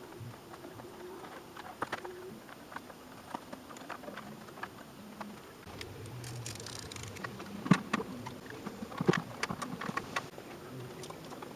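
Irregular light clicks and knocks, a few sharper ones clustered about eight to ten seconds in.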